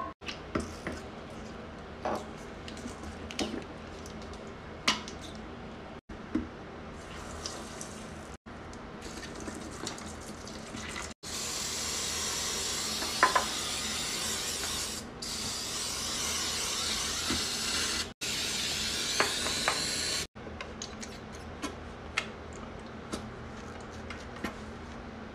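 Toilet being cleaned: scattered taps and clicks from a shaker can of Comet powder cleanser, then about halfway through a steady hiss of liquid cleaner pouring into the foaming bowl water for about nine seconds, cut off suddenly twice. Lighter taps and splashes follow.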